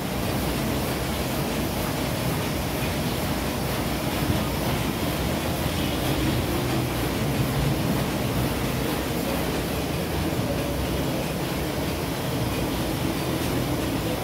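Steady, even rumbling noise with no distinct events.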